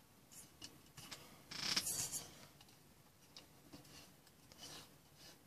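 Quiet room with a few faint light clicks and one brief hissing rustle about a second and a half in, like hand or handling noise.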